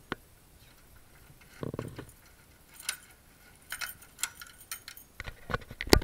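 Keys jingling on a ring and short metal clicks as a key is put into a mortise door lock's cylinder, with a dull knock about two seconds in and a quick run of sharp clicks, the loudest, near the end.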